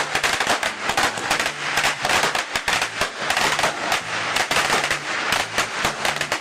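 A string of firecrackers going off in a rapid, continuous run of sharp cracks and bangs.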